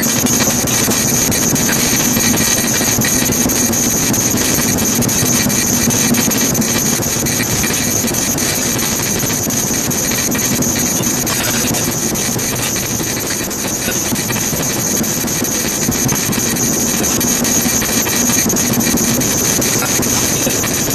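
Steady road and engine noise inside a moving car, with a constant low hum.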